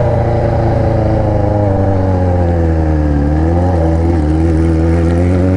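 Yamaha XJ6's 600 cc inline-four engine running through an Atalla aftermarket exhaust, loud. Its revs fall steadily for about three seconds, rise briefly in a short blip of throttle, then hold fairly steady.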